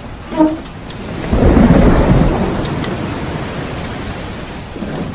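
A thunderclap about a second in, rumbling loudly and then slowly fading, over the steady hiss of heavy rain.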